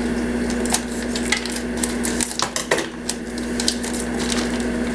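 A plastic food pouch is cut open with scissors and handled, crinkling in a series of short, sharp crackles and clicks. A steady low hum runs underneath.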